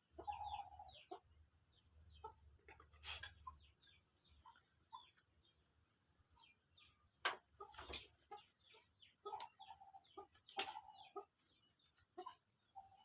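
Bangkok gamecock clucking softly in short notes, several times, among scattered sharp clicks and taps. The loudest clicks come about seven to eleven seconds in.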